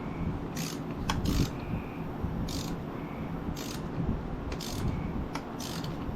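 Hand ratchet wrench being worked in short strokes, a raspy clicking about once a second, as a fastener is turned during the scooter's rear wheel and brake reassembly. A steady shop fan hums underneath.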